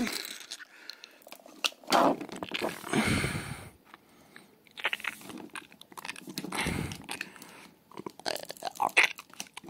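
Crunching, chewing noises in short irregular bursts, made by mouth as sound effects for a toy dinosaur biting into a figure.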